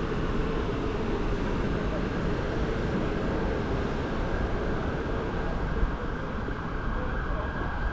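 City street ambience: a steady rumble of traffic, with people's voices in the background.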